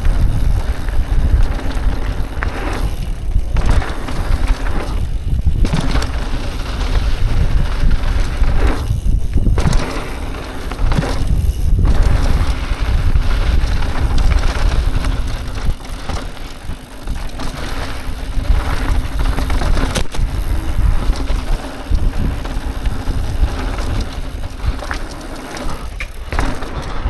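Mountain bike descending a dirt jump trail at speed: wind rushing over the microphone and tyres rolling and rattling over the ground, easing off briefly a few times.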